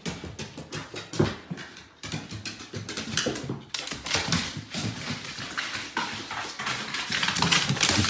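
Irregular taps and thumps of footsteps on wooden stairs as a pet goes down them.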